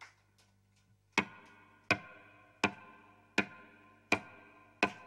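Acoustic guitar played solo: a sharply struck chord repeated at an even pulse about every three-quarters of a second, starting about a second in, each strike ringing out and fading before the next.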